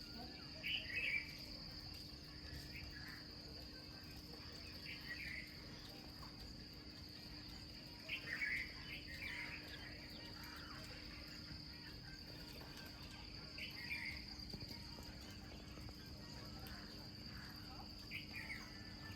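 Faint, steady high-pitched insect drone, with short chirps every few seconds.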